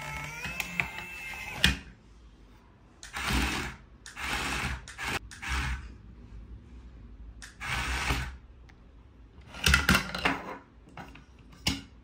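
Small electric gear motors of a toy remote-control excavator whirring in short bursts of a second or less, about five times, as the boom and bucket move. Sharp plastic clicks come with them, two of them near the end. A warbling electronic tone sounds for the first second and a half.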